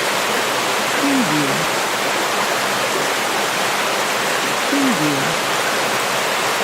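River water flowing, a steady even rush with no change in level.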